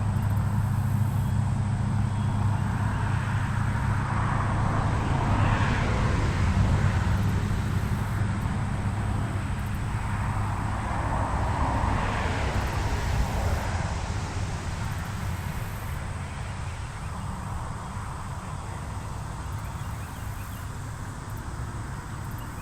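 Distant motor-vehicle traffic: a steady low engine hum with the rush of passing vehicles swelling and fading twice, about 5 and 12 seconds in, and dying away toward the end.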